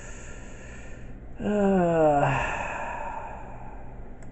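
A man sighs: a soft breath in, then a short voiced sigh that falls in pitch and trails off into a breathy exhale.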